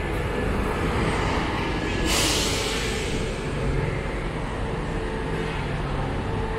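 Northern Class 170 Turbostar diesel multiple unit pulling away from the platform under power, with a steady engine hum. A burst of hiss comes about two seconds in.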